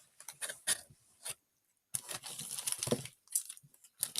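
A red velvet Oreo cookie being chewed close by: a run of short, irregular crisp crunches.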